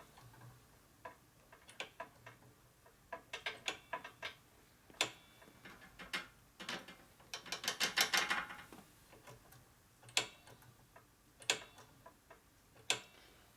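Scattered sharp metallic clicks and taps from hand work on a motorcycle's hydraulic brake while it is being bled. About eight seconds in comes a quick run of rapid clicks.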